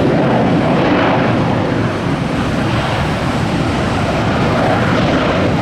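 Jet airliner's engines at takeoff power: a loud, steady rushing noise.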